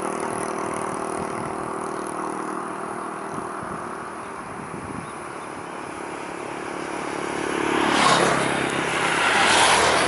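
Motor vehicle engine running steadily and slowly fading away, then vehicles pass close by with a loud rush of engine and tyre noise, peaking about eight and again about nine and a half seconds in.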